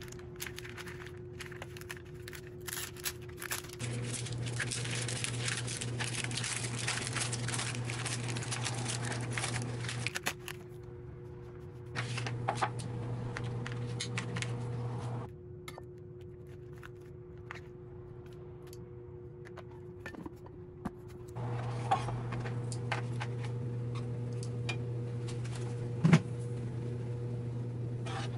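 Kitchen food-preparation sounds in several short cut clips: crackling, rustling and clicking handling noises over a steady low hum, with a sharp knock near the end.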